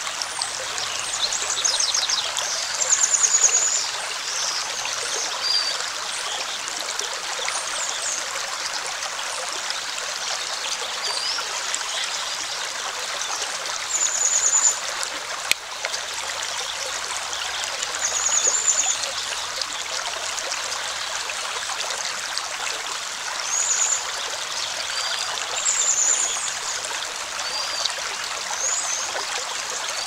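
Shallow rocky creek running over stones, a steady rush of water, with short high bird chirps now and then.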